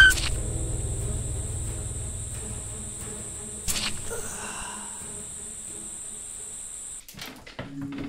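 Insects chirring in one steady, high, even band, under a low rumble that fades over the first couple of seconds and a single sharp click a little before four seconds in. Near the end the insect sound cuts off and a few soft knocks follow.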